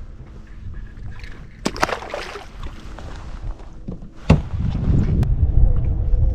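Wind rumbling on the microphone and water around a fishing kayak, with a brief rush about two seconds in and a couple of sharp knocks against the boat around the four- and five-second marks; the wind noise grows louder after the first knock.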